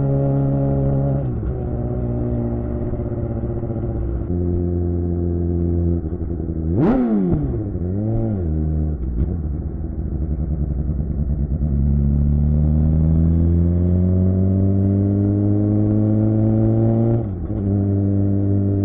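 Suzuki GSX-R600 K7 inline-four engine through a Yoshimura R11 exhaust, under way. The revs drop about a second in, then two quick throttle blips go up and straight back down. Later the engine pulls in a long, steady climb in pitch, with a short dip near the end like a gear change.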